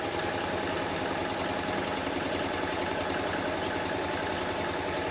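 Electric sewing machine running steadily, stitching a jacket pocket's lining onto the welt strip.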